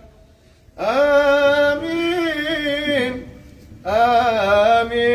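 A man chanting an Arabic supplication in long, melodic held notes, singing "Amin" drawn out over several pitches. There are two long phrases, the first starting about a second in and the second just before four seconds.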